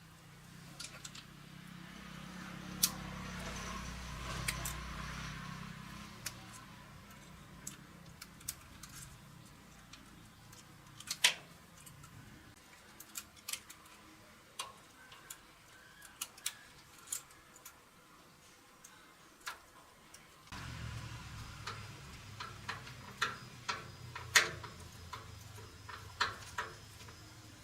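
Light metal clicks and taps of tools and small parts being handled during hand work on a starter motor, coming irregularly, a few louder knocks among them. A low hum runs under them for the first twelve seconds, stops, and comes back about twenty seconds in.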